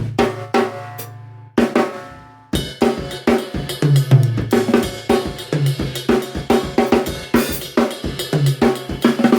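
Yamaha Stage Custom Hip drum kit with Zildjian A Custom cymbals played raw through a phone microphone. A few separate drum hits ring out in the first two and a half seconds, then a steady beat of bass drum, snare and hi-hat with cymbal.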